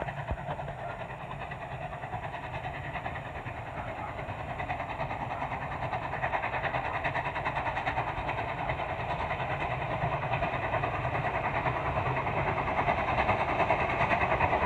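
Norfolk & Western 611, a J-class 4-8-4 steam locomotive, approaching under steam: a fast, steady exhaust beat that grows steadily louder as it nears.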